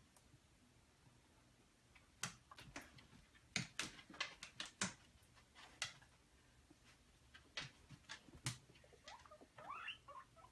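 Guinea pigs moving about in their cage: faint, scattered light clicks and taps, and near the end a few short squeaky calls that rise in pitch.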